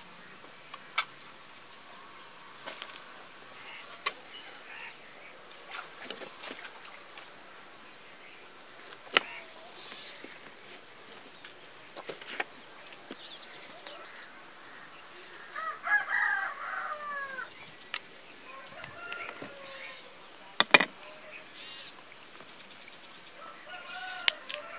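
Chickens calling now and then in the background, one call near the middle falling in pitch over about a second. Scattered sharp clicks and knocks from handling.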